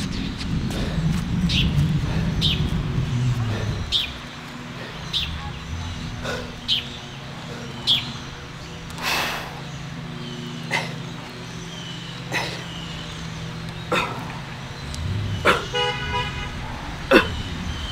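Road traffic: a vehicle passing with a low rumble in the first few seconds, and a short horn toot near the end. Through it runs a regular series of short sharp clicks, about one every second and a half.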